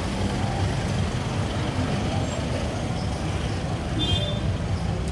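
Street traffic noise: a steady low engine rumble from motor vehicles, with a short high-pitched sound about four seconds in.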